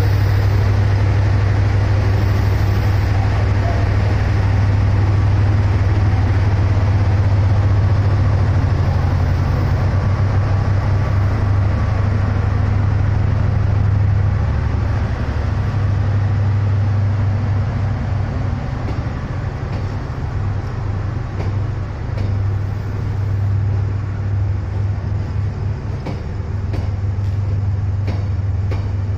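Diesel locomotive of a passenger train pulling slowly through the station, its engine giving a loud, steady low drone that weakens after about fourteen seconds as the passenger coaches roll past. Faint clicks of wheels over the rails come in near the end.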